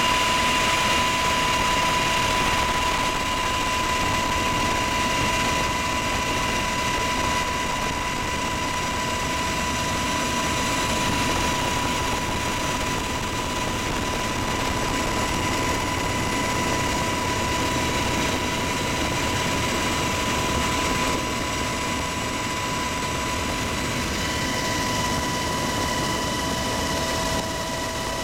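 Cabin noise of a military helicopter in flight: a steady engine and rotor rumble with a constant high whine over it.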